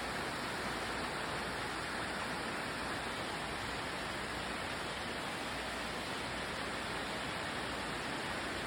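Heavy rain falling in a steady, unbroken rush.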